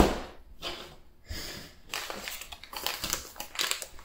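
A knock as it starts, then a black plastic packaging pouch crinkling and rustling irregularly as hands handle and open it.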